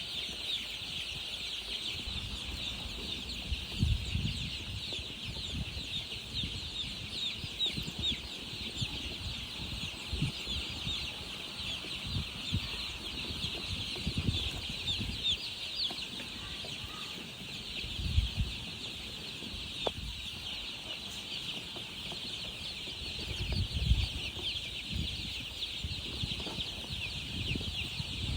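A flock of baby chicks peeping without a break: a dense chorus of short, high chirps. A few dull low thumps come and go underneath.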